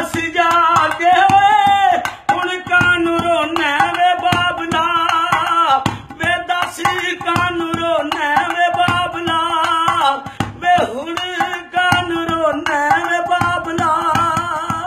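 Singing of a Punjabi folk song with a steady hand-drum beat under the melody.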